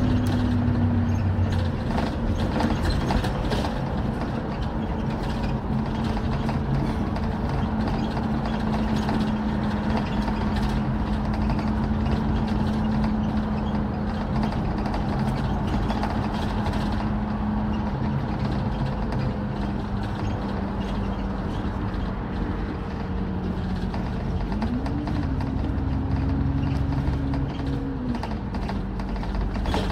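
Alexander Dennis Enviro400 MMC double-decker bus on the move, heard from inside: steady engine and road noise with a whine that slowly drops in pitch, then rises and falls twice near the end.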